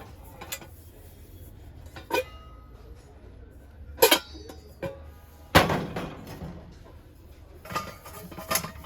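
Metal kitchen vessels, likely brass, knocking and clinking as they are handled and set down. There are several separate knocks, some ringing briefly, and the loudest come about four and five and a half seconds in.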